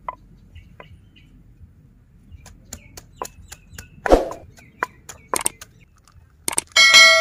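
Wooden pestle pounding garlic in a mortar: scattered dull knocks, with one heavier thud about four seconds in. Near the end a bright bell-like ding rings out and slowly fades; it is the subscribe-button sound effect laid over the video.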